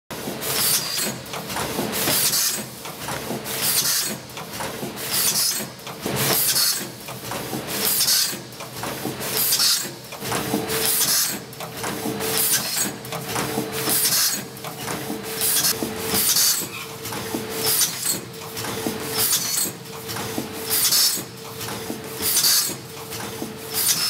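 Automatic pouch packing machine running in a steady cycle: short sharp hisses repeat about once or twice a second with mechanical clatter between, over a steady tone.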